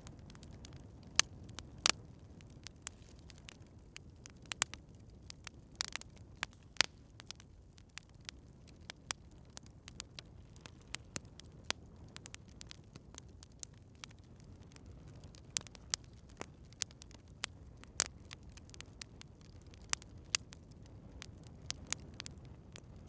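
Campfire crackling: irregular sharp pops and snaps of burning wood over a low, steady rumble of the flames.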